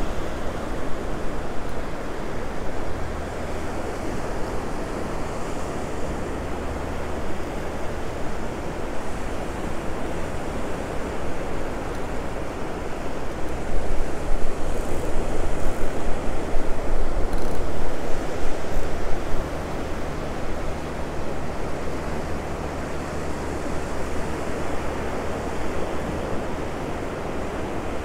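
Ocean surf washing onto a beach, with wind buffeting the microphone; the rush swells louder for a few seconds midway.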